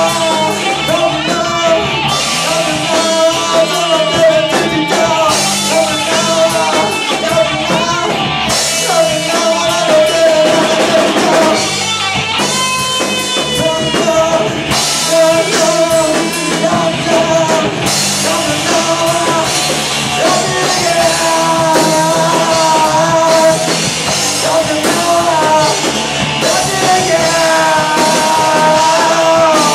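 Rock music with a sung vocal over a drum kit and band.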